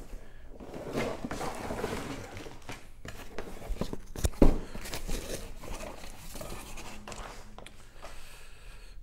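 A cardboard model kit box being handled and opened: scraping and rustling of cardboard and paper with several knocks, the loudest about four and a half seconds in.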